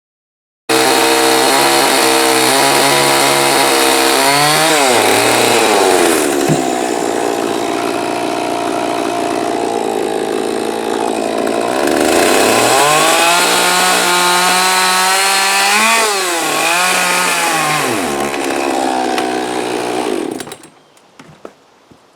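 Chainsaw running, revving up to cut into a basswood log, bogging into the wood under load, and falling back to idle between cuts several times. It shuts off near the end.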